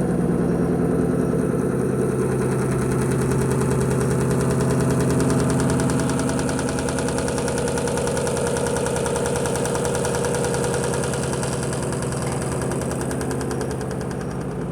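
Electrolux Perfect Wash 16 kg top-loading washing machine in its spin cycle: a loud, steady hum with a fast, even rattle as the spinning drum shakes the cabinet. The shaking and noise during the spin are the fault the owner is complaining about. It eases off slightly near the end.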